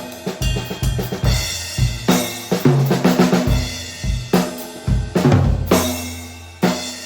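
Drum kit played in grooves and fills, featuring a custom JDS Blood River snare drum tuned low for a fat sound, with kick drum and cymbals.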